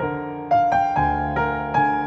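Background piano music: single notes struck about three times a second, each ringing and fading before the next.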